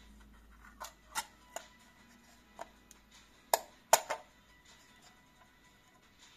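Metal-and-plastic clicks and clacks from a Zeiss Ikon Netar 515/16 folding camera as its hinged back is swung shut and latched. A few light clicks come first, then two sharp, louder snaps about three and a half seconds in.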